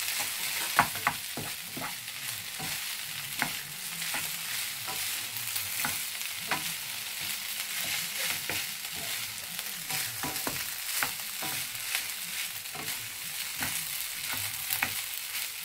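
Cooked rice sizzling in a hot frying pan as it is stir-fried with a spatula and a wooden spoon. A steady frying hiss runs under frequent, irregular clicks and scrapes of the utensils against the pan.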